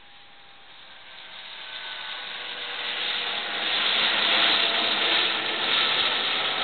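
Medical helicopter in flight. Its rotor and engine noise swells from faint to loud over the first few seconds, then holds steady.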